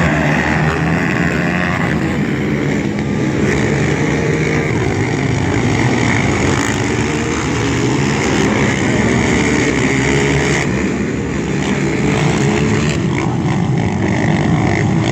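A pack of racing ATVs running hard on a dirt flat track, several engines revving and overlapping into a steady, loud din.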